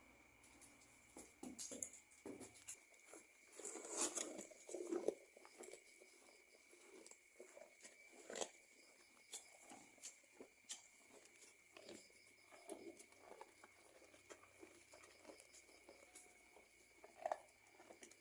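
Faint rustling and crunching of cattle eating feed, with irregular clicks and a few louder rustles about four to five seconds in. A steady high tone runs underneath.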